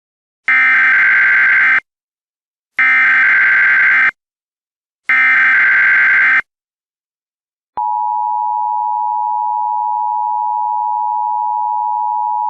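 Emergency Alert System (EAS) tones. Three loud bursts of the SAME digital header, each just over a second long and about a second apart, are followed about 8 seconds in by the steady two-tone attention signal.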